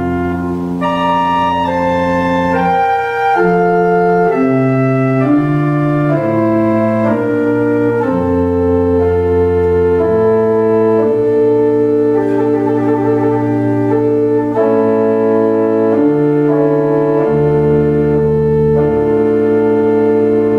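Organ playing offertory music: slow, sustained chords that change every second or two over a moving bass line, with one upper note held through the second half.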